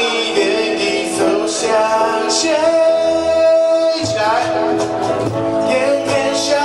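A male vocalist singing a pop ballad live into a microphone, backed by electric guitar and cajón. A note is held steady for about a second and a half near the middle.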